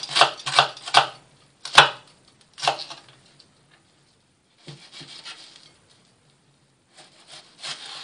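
Kitchen knife chopping an onion on a wooden chopping board: a quick run of knocks at first, then slower, uneven cuts with softer slicing sounds between.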